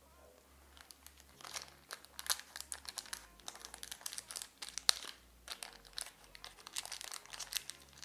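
Hands handling small pen-kit parts: an irregular crinkling crackle of many small, sharp clicks, starting about a second in.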